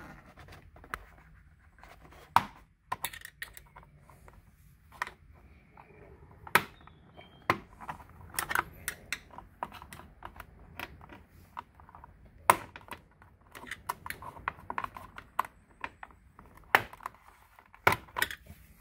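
Irregular clicks, taps and scraping as hands work plastic interior trim and tubing inside a car, with a few sharper knocks among lighter clatter.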